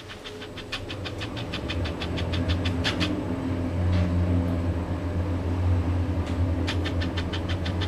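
Camera kit lens's autofocus motor ticking in rapid runs, about six or seven ticks a second, through the first three seconds and again near the end, picked up by the camera's own microphone. Under it, the steady low hum of a Schindler elevator car running down, growing louder after about two seconds.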